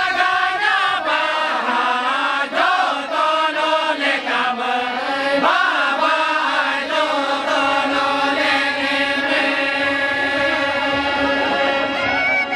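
Group of men singing a lagne folk song together, with a harmonium sounding steady held notes beneath the voices.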